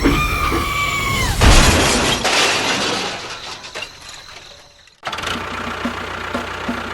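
A high whistling tone held for about a second that drops in pitch, then a loud crash with shattering that fades away over a few seconds. After a sudden cut, rhythmic music starts.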